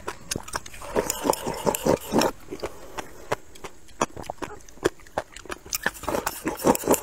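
Close-miked eating: wet crunching and smacking as a mouthful of crisp, chewy pickled papaya shreds is chewed, heard as a quick run of sharp clicks. Near the end, slurping from a bowl of rice porridge.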